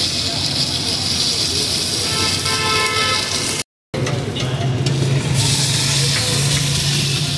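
Roadside food-stall noise: a steady high sizzling hiss from the flat steel griddle over traffic, with a vehicle horn sounding for about a second around two seconds in. A low engine drone runs through the second half, and the sound drops out briefly just before the middle.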